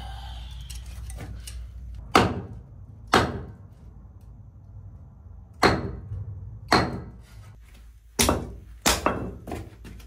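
Sticks of gathered firewood knocking as they are handled and set down one by one: about seven sharp wooden knocks, irregularly spaced, each with a short ring in a small room.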